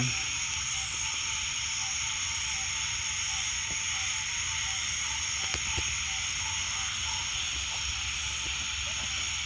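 Night chorus of marsh insects, with frogs mixed in: a steady, high-pitched ringing drone that never lets up.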